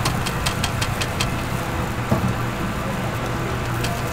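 A steady low mechanical hum, like a small engine or motor running. A quick series of sharp clicks comes in the first second or so, and a couple more near the end.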